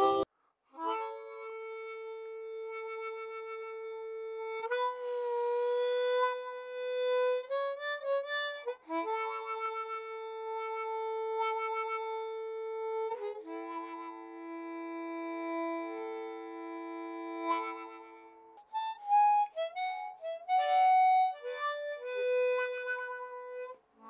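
Background music: a solo harmonica melody of long held notes, some slightly bent, with two-note chords in places and a few short breaks between phrases.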